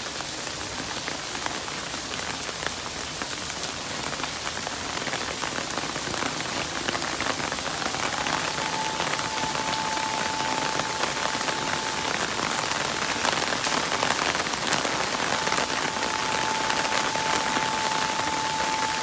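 Heavy rain pouring down and pattering on the ground and roofs. About eight seconds in, a siren rises into one long steady tone, stops a few seconds later, then sounds again about three seconds after that.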